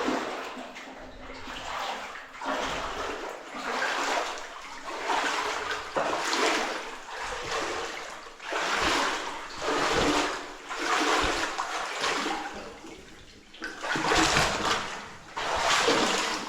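Footsteps wading through water in a flooded mine passage, with a splash and slosh at each stride, about one every second or so.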